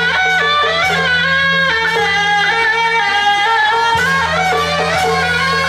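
Traditional temple-procession music led by a shrill double-reed horn (suona) playing a melody that steps from note to note, over a steady low hum.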